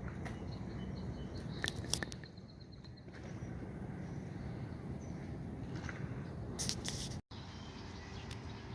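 Steady low outdoor rush of creekside ambience, with a few short, sharp high sounds about two seconds in and again near seven seconds, and a momentary dropout just after.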